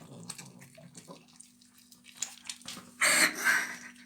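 A cat eating, with wet chewing and licking clicks, a low rumble in the first second and a short loud rustling burst about three seconds in.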